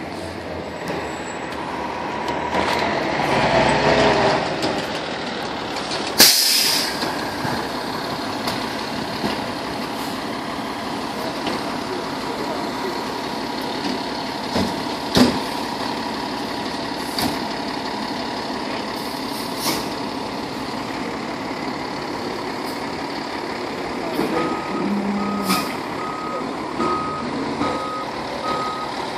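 A fire engine's diesel engine runs steadily, swelling as the truck pulls up, with a short sharp air-brake hiss about six seconds in and a few knocks later. Near the end its reversing alarm starts beeping over and over as the engine backs into the firehouse.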